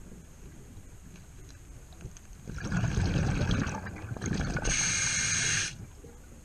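Scuba diver breathing through a regulator underwater: a burst of exhaled bubbles rumbling for about two seconds, then a hissing inhale through the regulator lasting about a second.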